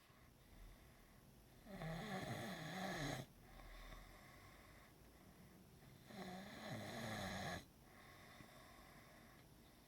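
Snoring: two long snores about four and a half seconds apart, each about a second and a half with a wavering low buzz, and a softer breath after the first.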